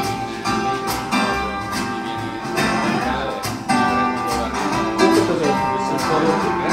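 Recorded music led by plucked acoustic guitar, played back through large open-baffle horn loudspeakers in a demonstration room.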